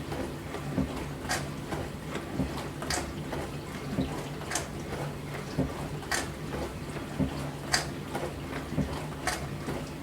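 Dishwasher running mid-cycle: a steady pump-motor hum under water spraying, with a sharp swish of spray coming back about every second and a half.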